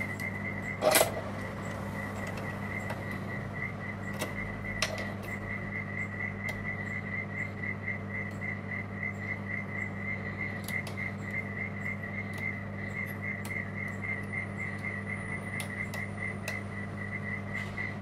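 A few light metallic clicks as a Lishi LW4 lock pick is fitted and worked in a lock cylinder held in a vise. They sit over a steady low hum and a faint high tone pulsing about three times a second.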